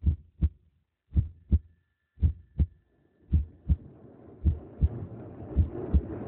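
Pairs of low, dull thumps in a lub-dub rhythm like a heartbeat, one pair about every second, six pairs in all. A steady background hum comes up underneath from about halfway through.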